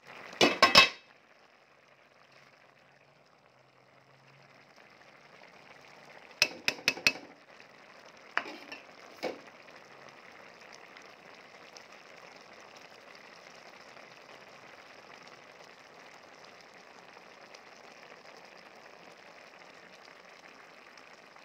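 An aluminium pot of rice and potatoes for pulao boiling with a steady bubbling hiss. A loud metal clatter near the start, from the pot's lid coming off, is the loudest sound. A few metal clinks follow, about six to nine seconds in.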